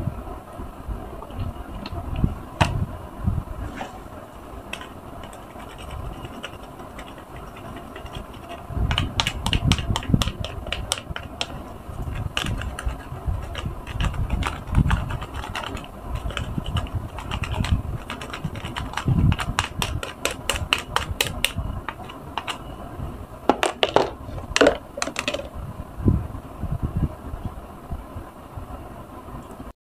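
A gloved hand rubs powder detergent and blue liquid soap into a wet, powder-covered yellow car sponge in a tub of suds. There are low handling thumps, and several runs of fine crackling clicks come in bursts, the densest around the middle and again near the end.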